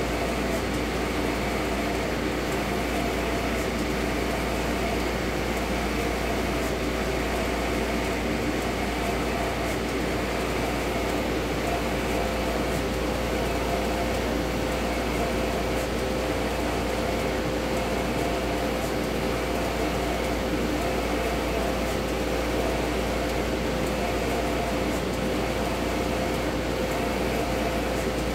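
Océ Colorado 1650 UVgel wide-format printer running while printing: a steady machine hum of fans and motors with a constant mid-pitched tone.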